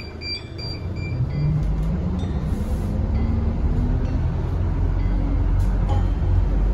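Mitsubishi Fuso FE84 city bus's diesel engine running with a deep rumble, its pitch climbing about two seconds in and growing louder. A run of short electronic beeps sounds in the first second.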